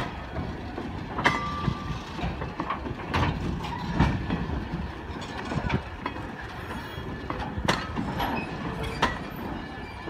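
Railway passenger coaches rolling slowly past: steel wheels rumbling steadily on the rails, broken by irregular sharp clanks and knocks from the wheels and running gear. A short squeal sounds about a second in.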